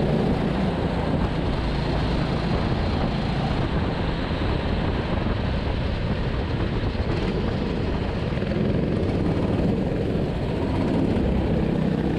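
Go-kart engine running steadily, heard from the driver's seat, under an even hiss.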